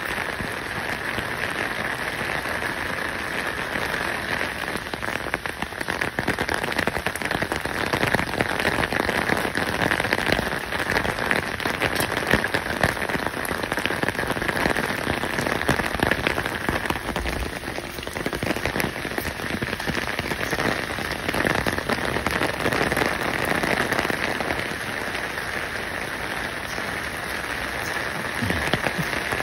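Steady rain pattering on a surface: an even hiss packed with fine crackles.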